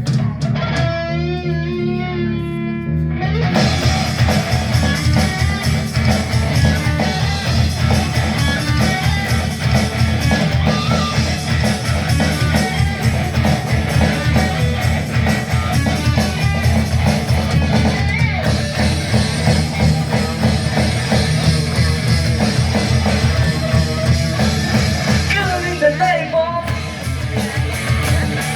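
Rock band playing an instrumental passage: a lone wavering electric guitar line for about three seconds, then heavy distorted guitar, bass and drums together. The band drops out briefly near the end, then comes back in.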